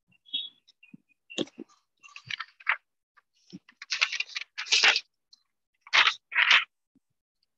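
Irregular short bursts of scratchy, rustling noise, about a dozen, with dead silence between them. The loudest clusters come near the middle and near the end.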